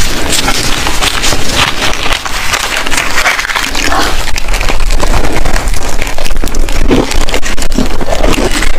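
Frozen block of compressed shaved ice being bitten and chewed close to the microphone: dense, irregular crunching and crackling of breaking ice.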